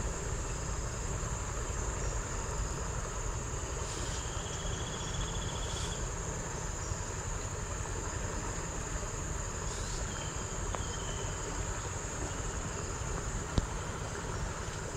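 Insects singing in a steady, high-pitched drone over a low rumbling background noise, with a short buzzy trill about four seconds in and a single sharp click near the end.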